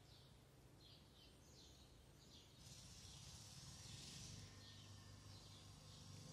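Near silence: faint outdoor background with a low hum, a few faint short high sounds and a brief hiss about three seconds in.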